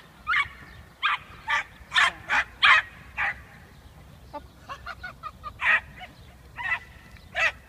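Small dogs barking in short, high yaps, about a dozen spaced irregularly, loudest and quickest in the first three seconds and fainter after that.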